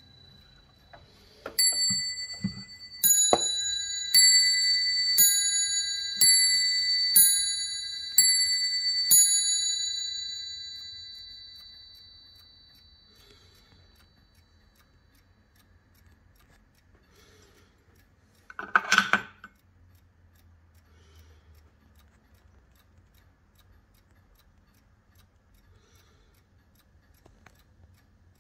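Warmink mantel clock striking the hour on its double bells: eight strikes about a second apart, each ringing on and overlapping, dying away over a few seconds. About 19 s in, a brief loud handling noise; the movement ticks faintly the rest of the time.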